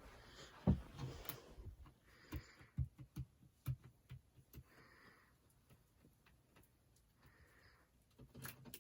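Faint handling sounds of an LED light strip being stuck up: scattered light taps and clicks, with a few short soft rasps about half a second long.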